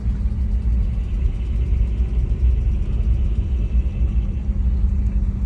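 1995 BMW E36 M3's straight-six engine running steadily with a rapid, light ticking over its rumble. The owner thinks it is probably a lifter tick, possibly the timing chain, and doubts it is an exhaust leak.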